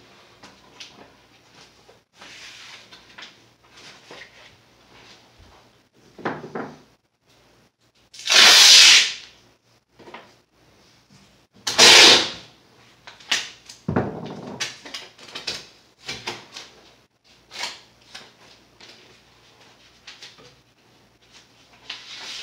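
Masking tape pulled off the roll in two loud rasps a few seconds apart, with lighter clicks and rustles of hands pressing tape onto the cabinet frame in between.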